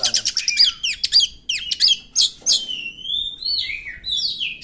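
Oriental magpie-robin singing an excited, fast and varied song: a quick rattling run of clicking notes at the start, then loud clear whistles sweeping up and down, with one long slurred whistle past the middle and falling notes near the end.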